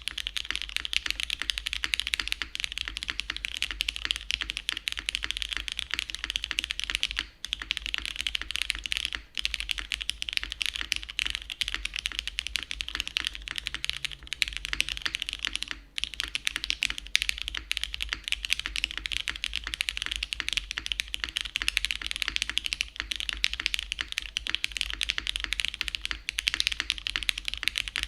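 Continuous fast typing on a custom Matrix Labs 8XV 3.0 mechanical keyboard with a carbon fibre plate, Cherry Hyperglide switches lubed with Krytox 205g0, GMK keycaps and TX stabilizers. The keystrokes come in a dense, even stream, with brief pauses about 7, 9 and 16 seconds in.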